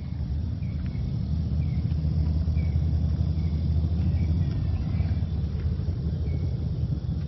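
2014 BMW S1000R's inline-four engine running while under way: a steady low rumble that swells slightly in the middle. Faint short high chirps repeat about once a second.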